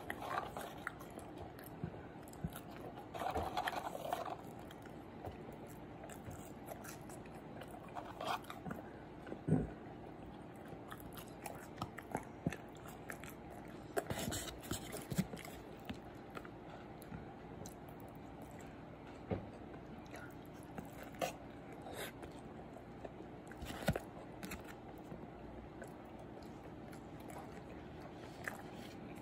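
Close-up chewing and biting of a bacon quarter-pounder burger, with scattered short crunches and clicks.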